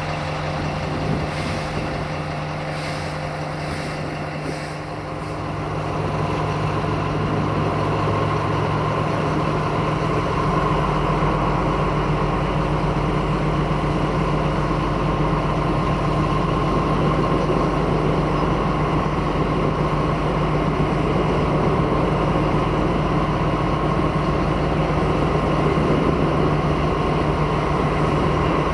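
MÁV M41 diesel-hydraulic locomotive's diesel engine running, growing louder about five seconds in and then holding a steady note.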